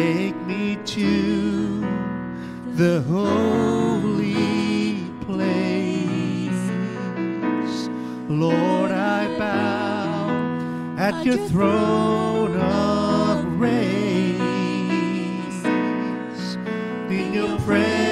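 A man singing a slow gospel worship song into a microphone, with vibrato on held notes, over sustained electric keyboard chords.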